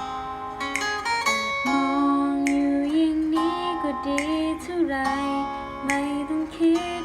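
Instrumental song intro: plucked guitar notes under a held, gliding melody line.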